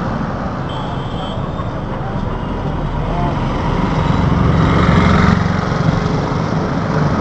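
Road traffic noise heard from a moving vehicle: engines and tyres running steadily, swelling louder around the middle.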